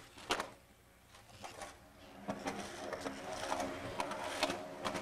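Skateboard on a hard plaza surface: a sharp clack of the board about a third of a second in, then from about two seconds on the rattling roll of urethane wheels and trucks, peppered with quick clicks.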